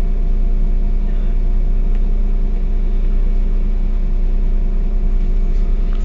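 Heuliez GX 127 city bus's diesel engine idling steadily while the bus stands still, a constant low hum.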